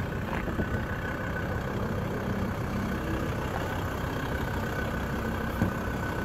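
Ford Ranger pickup's engine running at low speed as the truck crawls over rough, grassy, rocky ground, heard from inside the cab, with a steady high whine above the rumble. One sharp knock near the end.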